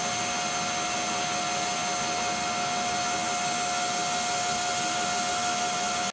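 A motor-driven machine running steadily, with a rushing hiss and a constant whine.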